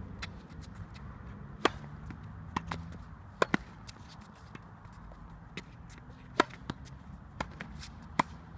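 Tennis racket striking balls and balls bouncing on a hard court: scattered sharp pops, a few in quick pairs, over a low steady outdoor rumble.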